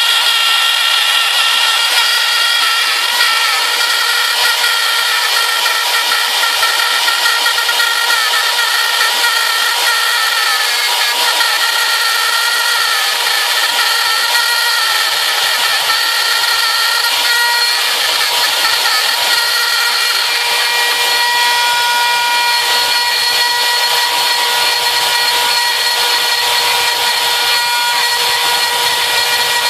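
RotoZip spiral saw on a homebrew CNC machine running and cutting: a loud, steady high-pitched whine with several tones whose pitch wavers a little.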